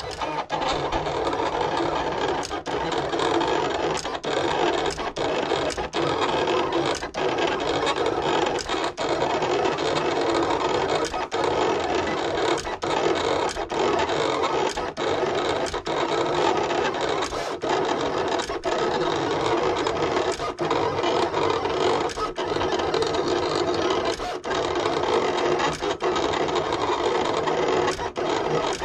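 Silhouette Cameo vinyl cutter at work, its blade carriage and rollers running in a steady mechanical whir as it cuts lettering from vinyl on a carrier mat, with sharp clicks every half second to a second.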